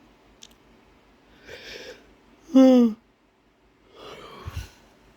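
A man's heavy breathing and sniffing between sentences, with one short voiced sound, falling in pitch, in the middle.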